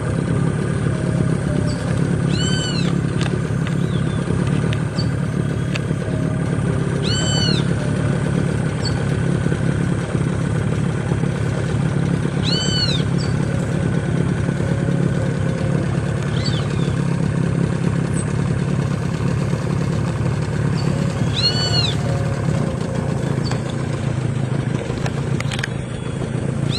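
A steady low engine hum at idle, with a bird's short rising-and-falling call, rich in overtones, repeated about every five seconds.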